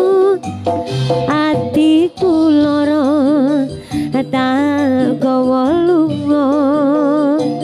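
Live East Javanese jaranan music: a high melodic lead slides between held notes with a wide, wavering vibrato over low, steady bass notes.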